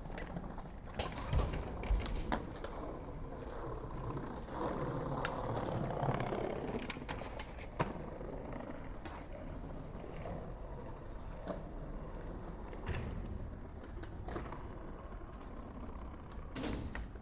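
Skateboard rolling over pavement, the wheels making a steady rumble, with a few sharp clacks of the board: three in the first few seconds and one more near the middle.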